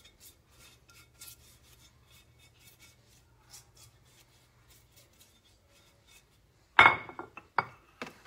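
Soft basting brush swishing repeatedly around the inside of a baking dish, greasing it with oil, in quick light strokes. Near the end comes a loud knock, then a lighter one, as the dish and brush are put down.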